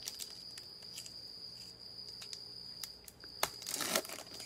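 A foil football-card pack is torn open by gloved hands: small crinkles and ticks, then a burst of crinkling near the end. A cricket chirps throughout in a steady high trill.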